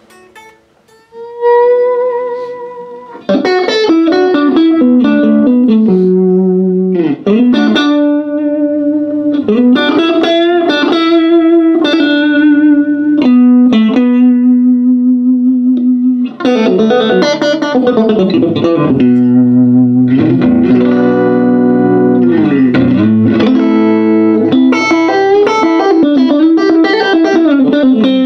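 Electric guitar played through a 1956 Gibson GA6 tube amplifier: single-note lead lines with sustained notes and several string bends. It starts with a single ringing note about a second and a half in, and the playing gets busy about three seconds in.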